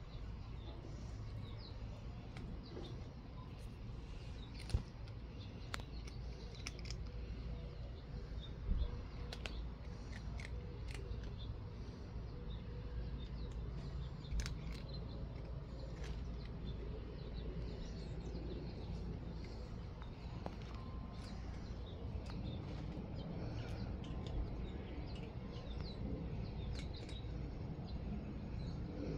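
Garden ambience: a steady low rumble with many small sharp clicks and taps scattered through it, two louder knocks about five and nine seconds in, and birds chirping faintly now and then.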